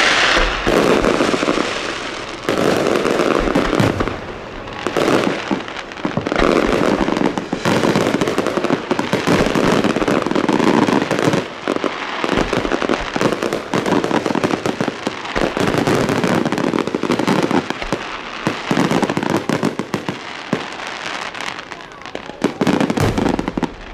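Aerial fireworks display in a full barrage: shells bursting in quick succession, many bangs and crackles overlapping, easing briefly about four seconds in.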